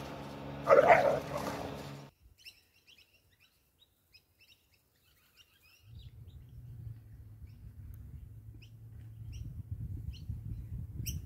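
A dog gives one short bark about a second in. After a near-silent gap, small birds chirp with short high tweets, and a low rumble comes in about halfway through and runs under them.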